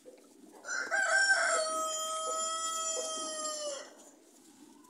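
A rooster crowing once, about three seconds long: a few broken opening notes, then a long held note that drops slightly as it cuts off.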